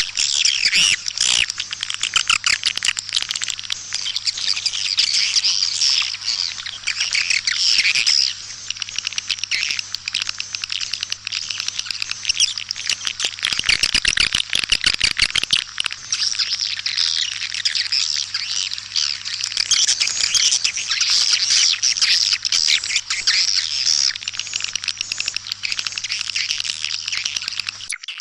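A dense, continuous chorus of white-nest swiftlet chirps and twitters. This is a swiftlet calling recording, played to lure the birds into a swiftlet house. A steady low hum runs underneath, and a stretch of rapid clicking comes about halfway through.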